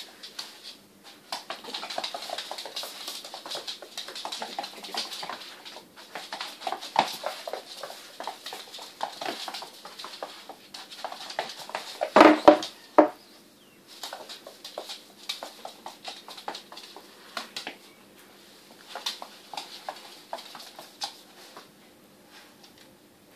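A young badger's claws scrabbling and pattering on a laminate floor as it chases and bites at a broom, mixed with the broom head brushing and knocking on the floor. There is a louder burst about twelve seconds in.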